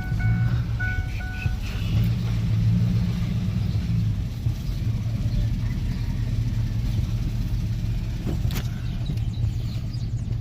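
Steady low rumble of a vehicle being driven. In the first second and a half a short electronic tune of repeated beeping notes plays and then stops.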